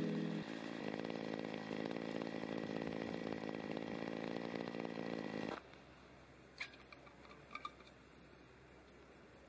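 Petrol brush cutter engine running steadily for about five seconds, then cutting off suddenly. Afterwards: quiet open air with insects chirping and a couple of faint clicks.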